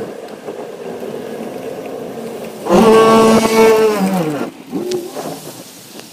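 Pickup plow truck with a tailgate salt spreader running past close by: a loud pitched drone swells in about two and a half seconds in, holds for about a second and a half, then drops in pitch and fades as the truck pulls away, over a steady background hiss.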